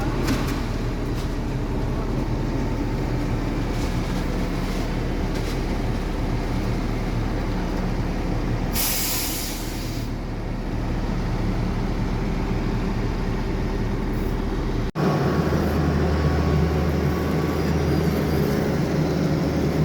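Diesel engines of heavy road-paving machinery running steadily, with a hiss lasting about a second partway through. About fifteen seconds in the sound changes abruptly to a different, deeper engine drone.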